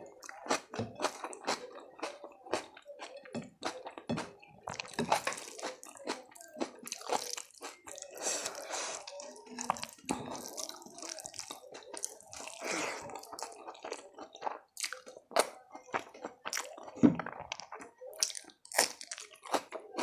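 Close-miked eating sounds: a person chewing and crunching food, with many irregular wet mouth clicks and crisp bites, and a couple of longer stretches of noisy chewing.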